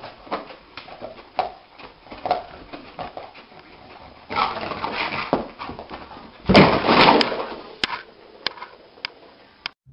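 A dog whimpering, with short whines and scattered small clicks, broken by two louder noisy bursts about four and six and a half seconds in.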